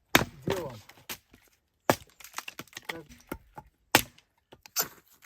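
Sharp wooden cracks and knocks: about five strong ones at uneven intervals, with smaller clicks and snaps between them.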